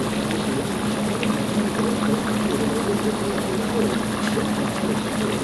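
A pot of shrimp jambalaya base simmering over the fire, a steady bubbling hiss with a low steady hum underneath.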